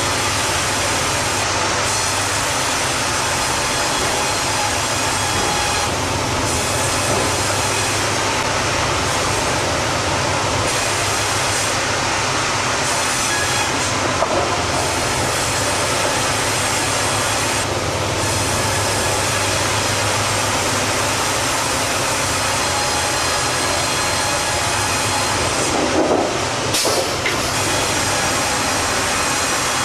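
Continuous loud mechanical rumble and clatter of heavy machinery, with a brief louder disturbance near the end.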